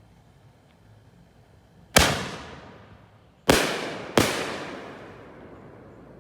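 Three loud, sharp bangs from 6-inch double-break canister firework shells, about a second and a half and then under a second apart, each trailing off in a long echo.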